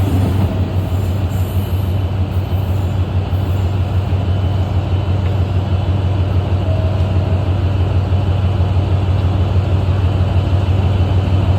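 Electric express train running out of the station: a steady rumble with a constant low hum and no clear change in level.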